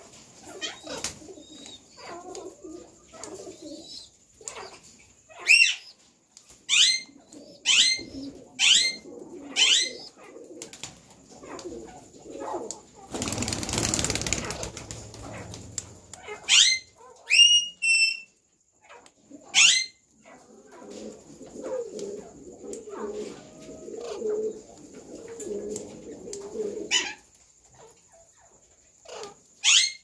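Alexandrine parakeets screeching: a run of sharp, rising calls about one a second, a few more later, with stretches of low mumbling between them. Around the middle there are a few seconds of loud rushing noise.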